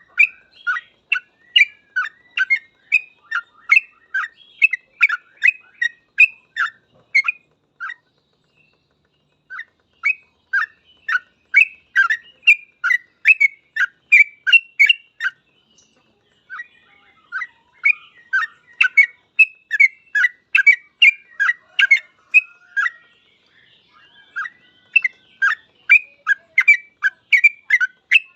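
Yellow-vented bulbul (cucak trucuk) singing in full 'ropel', a fast nonstop run of short sharp notes at about three to four a second. The runs twice break off for a second or two.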